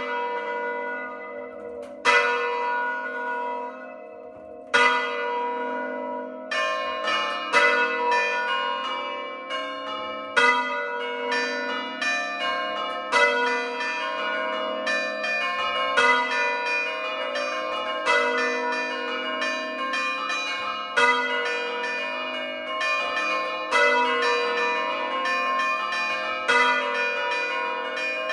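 A set of four hand-rung church bells: the largest, an A3 bell cast by De Poli in 1921, and three bells cast by Paolo Capanni in 1951. Three single strokes come a couple of seconds apart, each left to ring out. From about six seconds in, the bells strike in quick succession, several strokes a second, in a continuous ringing pattern.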